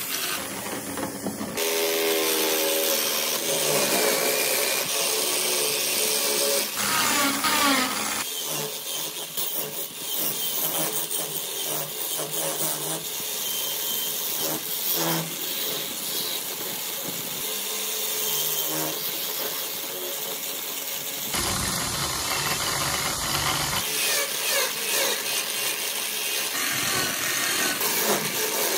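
Electric drill clamped as a small wood lathe, running while a hand chisel cuts into a spinning wooden disc. The sound changes abruptly several times where the footage is cut.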